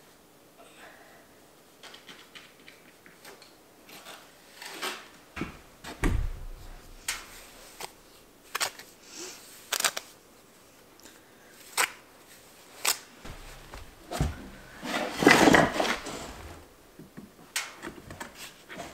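Scattered knocks, clicks and scrapes from hand work with stones and mortar, with a low thud about six seconds in and a longer, louder scrape around fifteen seconds in.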